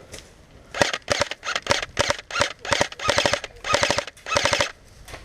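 Airsoft guns firing in rapid bursts: about a dozen quick runs of sharp clicks starting about a second in, the later bursts longer.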